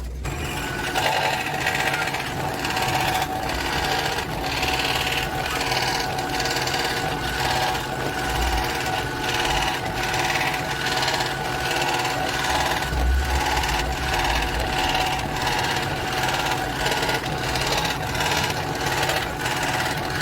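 Electric scroll saw running steadily, its reciprocating blade cutting PVC pipe; it picks up about a second in.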